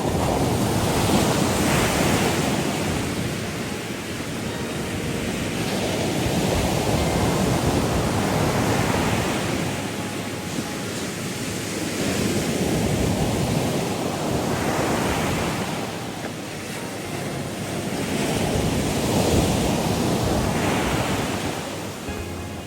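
Ocean waves washing in, a noisy rush that swells and fades about every five to six seconds.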